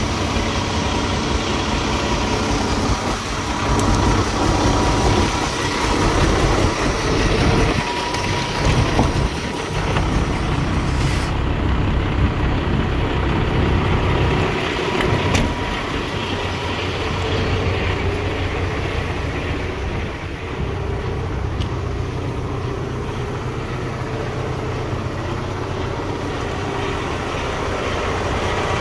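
Kenworth T680 day cab's Paccar diesel engine idling steadily. About eleven seconds in the high hiss drops away as the microphone moves into the cab.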